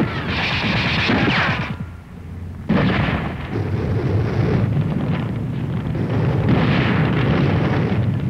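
Battle sound effects on an old film soundtrack: a long rushing blast dies away, then after a short lull another blast cuts in suddenly and loudly about three seconds in and rumbles on, swelling again near the end.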